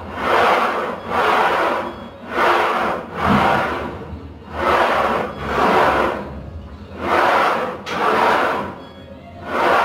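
Rasping, rubbing swells in pairs, one pair about every two and a half seconds, in time with a set of leg press repetitions, each lowering and push bringing its own swell.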